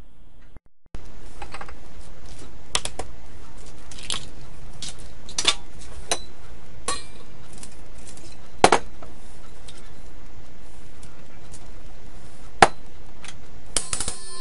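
Scattered light clinks and knocks of kitchen utensils and containers against a stainless steel mixing bowl and the counter as ingredients are added, over a steady background hiss. The loudest knock comes about nine seconds in, and a cluster of clinks comes near the end.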